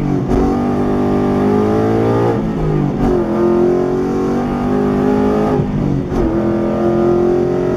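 Ford Mustang GT's 5.0-litre V8 with Stainless Works long-tube headers and X-pipe exhaust, heard from inside the cabin as the car accelerates. The engine pitch climbs, then twice drops and picks up again as it shifts up.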